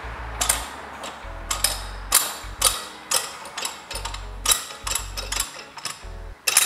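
Irregular sharp metallic clacks and knocks, about two a second, as the cylinder block of a Kawasaki Z750-D1 four-cylinder engine is worked down over its pistons and studs, with a loud double clack near the end.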